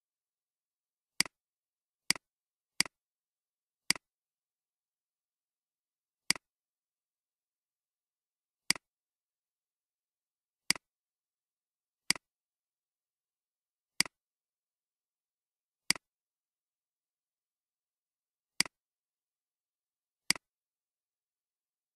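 Computer mouse clicks, about a dozen spaced irregularly one to three seconds apart, each a sharp press followed at once by a lighter release, with dead silence between them.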